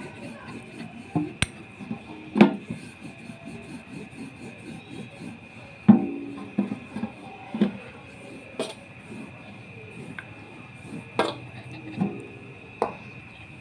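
Wooden rolling pin rolling out dough on a stainless-steel plate: a steady rubbing broken by about nine sharp knocks as the pin strikes the metal. The plate rings briefly after the louder knocks.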